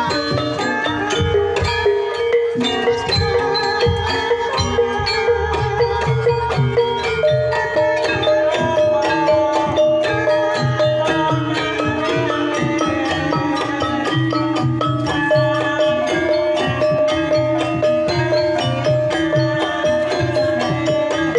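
Banyumasan gending tayub music: Javanese mallet percussion plays dense interlocking notes over a steady drum pattern, with a long, wavering melodic line held above them.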